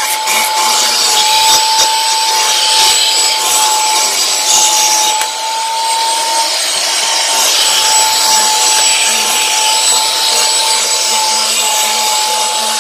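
Commercial backpack vacuum running steadily with a high, unchanging whine, its tool rubbing and sweeping over carpet.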